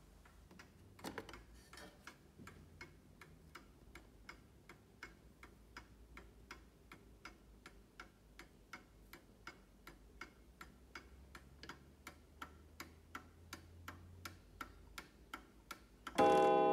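Antique Sessions mantel clock's movement ticking steadily, an even tick-tock of about three beats a second. Near the end the clock's strike sounds once, a loud ringing note that keeps sounding, as the minute hand reaches the half hour.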